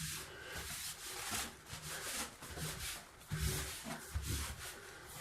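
Scrubbing and wiping at a bathtub's surface in irregular strokes, clearing off the drain gunk that splattered up onto the tub and tile.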